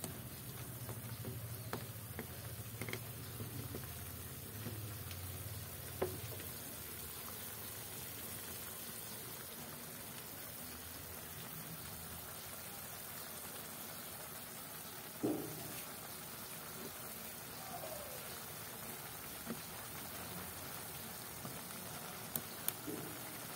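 A pot of broth with instant noodle blocks simmering with a low, steady bubbling, and a few sharp knocks of a wooden spatula against the pot, about six seconds in and again past the middle.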